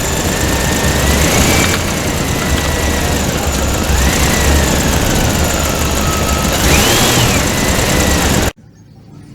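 Engine sound effect: a loud, noisy engine rumble with a high tone wavering up and down over it, which cuts off suddenly near the end.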